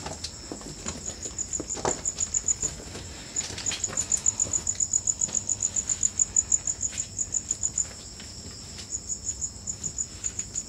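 A night insect chirping in quick, even pulses, about eight a second, in runs of a few seconds with short breaks. A few faint footsteps and light knocks on debris sound underneath.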